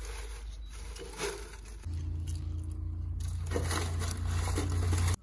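Split firewood being stacked by hand into the steel firebox of a wood-fired kazan stove: pieces of wood knocking, clattering and scraping against each other and the metal. A steady low rumble joins about two seconds in.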